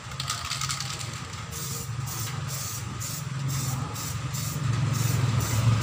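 Aerosol spray can of metallic silver paint hissing in short bursts about twice a second while a wheel is spray-painted, over a loud low hum that swells near the end.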